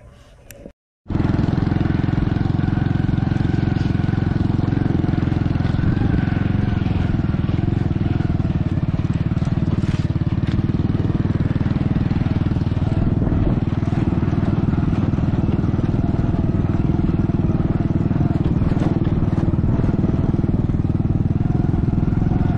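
A small engine running steadily and loudly, cutting in abruptly after a brief break about a second in.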